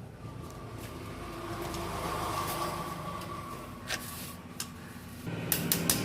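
A few sharp light metal clicks and taps as the master-link lock is fitted on a Suzuki Gixxer's O-ring drive chain. A low hum starts again about five seconds in, followed by a quick run of clicks near the end.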